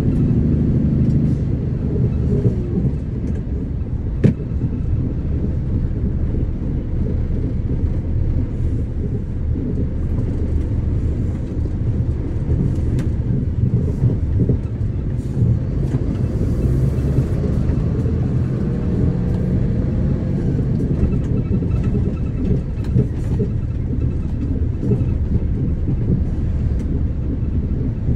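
Steady low rumble of a car's tyres and engine, heard inside the cabin while driving. A single sharp click about four seconds in.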